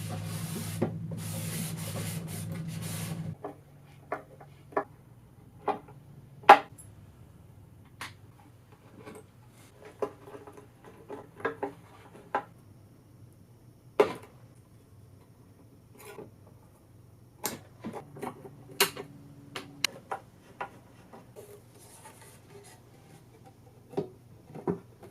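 An electric motor runs with a steady hiss and low hum, then cuts off suddenly about three seconds in. After that come scattered knocks, taps and light rubbing on the wooden case as it is worked on by hand.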